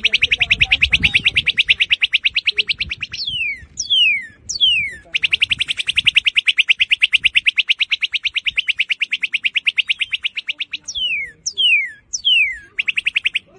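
Northern cardinal singing: clear downslurred whistles alternating with long, very fast even trills. It opens with a trill of about three seconds, then three downslurred whistles, then a trill of about five and a half seconds, more whistles, and a short trill near the end.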